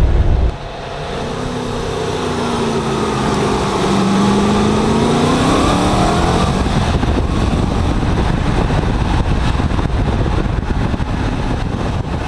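A 1978 Corvette's V8 running under way in its new five-speed. The engine note drops in pitch and then climbs back up over a few seconds, over steady road and drivetrain noise.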